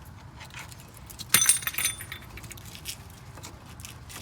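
Metal clinking and rattling as a brake caliper is worked off the rotor and bracket, with a quick cluster of loud, ringing clanks a little over a second in, amid lighter ticks and taps.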